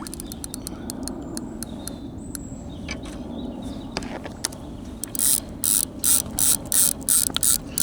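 Fishing reel ratchet clicking: light scattered clicks at first, then from about five seconds in a regular run of louder clicks about three a second.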